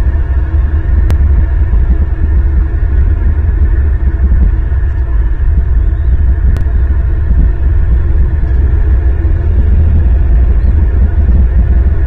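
A loud, steady low rumble with a faint hum over it, and two sharp clicks, about a second and about six and a half seconds in.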